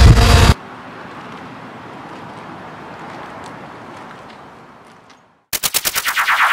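A Kawasaki ZX-6R sport bike's engine running at speed cuts off abruptly about half a second in, leaving a faint hiss that fades away. Near the end a rapid burst of sharp stuttering pulses, about ten a second, starts suddenly and swells into a sustained sound.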